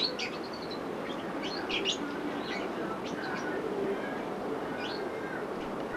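Small birds chirping in short, high chirps, over a steady background noise.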